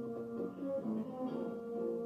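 Background score music: short plucked-string notes moving over a steady held chord.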